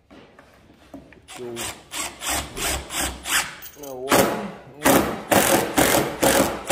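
Milwaukee Fuel cordless driver driving a construction screw through a steel caster plate into wood, run in short trigger pulses of about four a second, with a short rising whine of the motor about four seconds in, then louder pulses as the screw seats.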